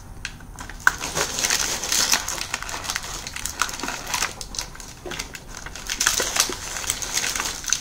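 Crinkling and crackling with many small clicks, from plastic packaging and small plastic toy figures handled close to the microphone, along with paper rustling.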